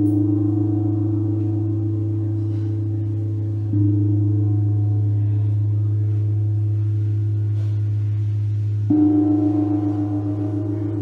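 Amplified metal percussion, a gong and metal bowls, gives a sustained, gong-like ringing drone over a steady low hum. A fresh ringing tone comes in about four seconds in, and again, loudest, about nine seconds in.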